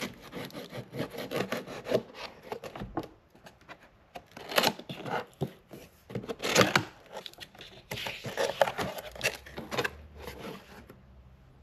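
Knife blade slicing through a sticker seal on a cardboard box, then cardboard scraping and rubbing as the box's tab and lid are pulled open, with a few louder rasps and a flurry of rustling near the end.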